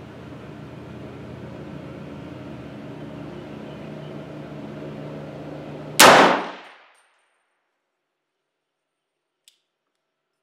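A single shot from a 300 Blackout AR-15 rifle about six seconds in, sudden and loud, its report ringing out for about a second. Before it, a steady low hum.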